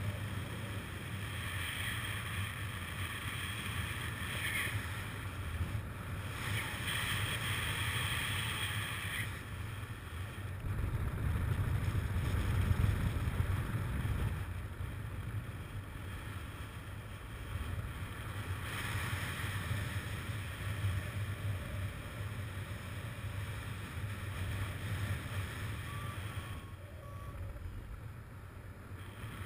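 Airflow rushing over the microphone of a paraglider pilot's camera in flight: a steady wind rush with a low rumble, swelling for a few seconds near the middle.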